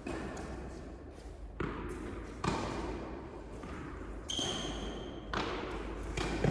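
Tennis ball being struck by rackets and bouncing on an indoor court, a sharp echoing knock every second or so. A steady high squeal lasting about a second comes about two-thirds of the way through.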